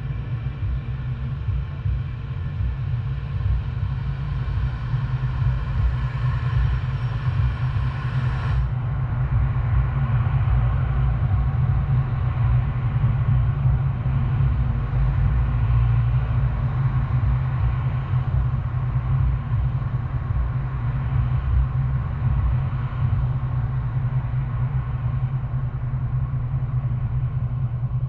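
A car being driven, with a steady low rumble of engine and tyre noise. A faint higher hum and hiss above it cut off abruptly about a third of the way in.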